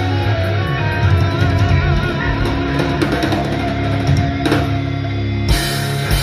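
Rock band playing live: guitars over bass and a drum kit, with a crash of cymbals about five and a half seconds in.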